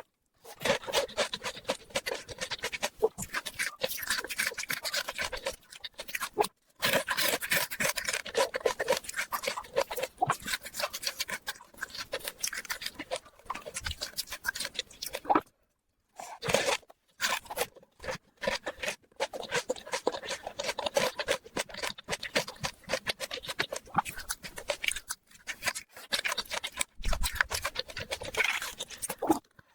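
Close-miked eating sounds: rapid irregular crunching, smacking and chewing, broken by a few abrupt silent cuts.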